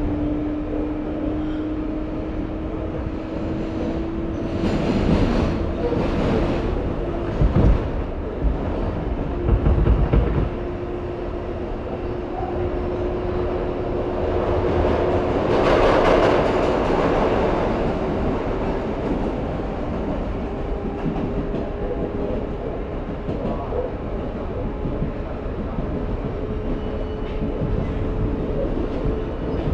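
R188 subway train standing at the platform with its doors open, its onboard equipment humming steadily, with a thin tone that slowly rises in pitch. A few dull thumps come about 7 to 10 seconds in, and a louder rushing swell peaks about halfway through.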